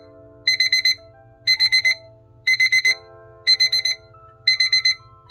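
Kissarex digital kitchen timer's alarm beeper going off at zero: a high-pitched electronic beep in quick clusters of about five beeps, repeating once a second, the signal that the countdown has finished.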